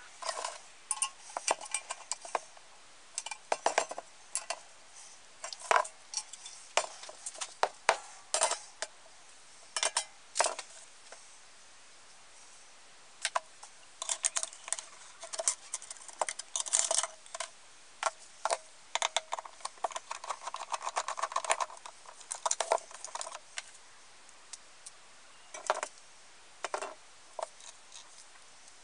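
Metal parts of an old camp stove clinking, clicking and knocking as they are handled and fitted back together by hand, in irregular sharp taps with a few short pauses.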